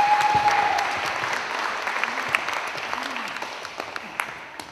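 Audience applauding, the clapping dying away over a few seconds, with one held high call or whistle just at the start.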